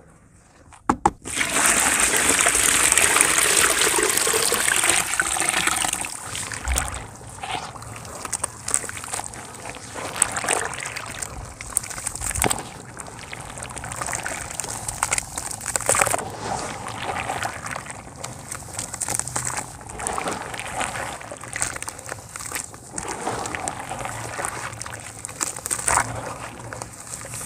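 Water poured into a plastic bucket of dry cement powder, a loud steady hiss for about four seconds, followed by hands squishing and sloshing through the wet, foamy cement paste in irregular squelches.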